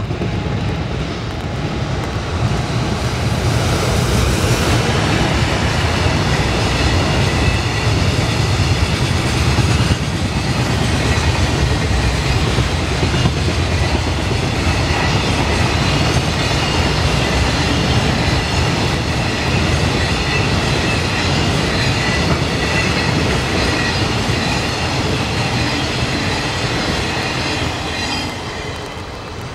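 Long container freight train hauled by an EF210 electric locomotive passing at speed: a steady rumble with the clickety-clack of wagon wheels over the rail joints, easing off near the end as the last wagons go by.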